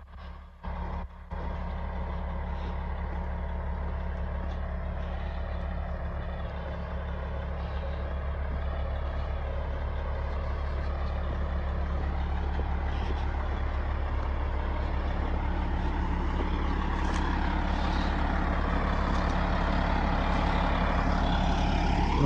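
CAT bulldozer's diesel engine running steadily, slowly getting louder. The sound cuts in and out briefly at the very start before settling into a continuous drone.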